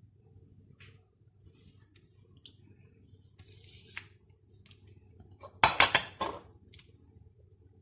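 Kitchen dishes and utensils being handled: scattered light clicks and a short scrape, then a quick cluster of loud, sharp clinks with a brief ring a little past halfway.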